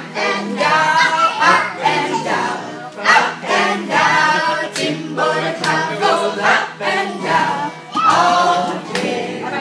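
A children's dance song: a group of voices singing together with music.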